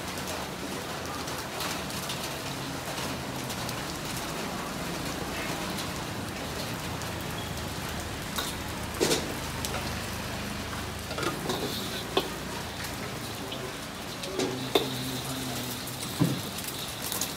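Steady rain falling, with a few scattered clatters and knocks in the second half.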